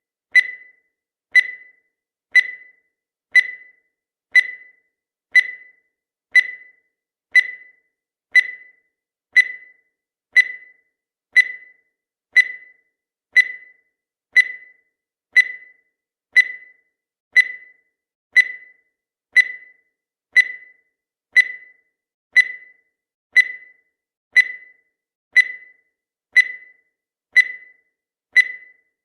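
Countdown timer sound effect ticking steadily once a second, each tick short and sharp and dying away quickly, counting down the seconds.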